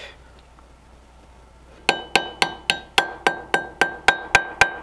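Rapid light metal taps, about four a second, beginning about two seconds in, each ringing briefly: a screwdriver tapping on a Stromberg 97 carburetor casting to knock a small internal part down into its seat.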